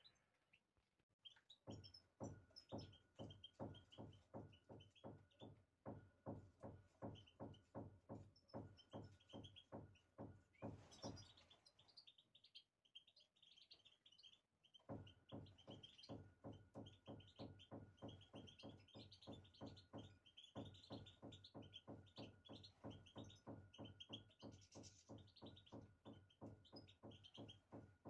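Small finches, European goldfinches among them, chirping in short bursts. Under them runs a louder, even thudding of about three beats a second that pauses for a few seconds midway, with a faint steady hum.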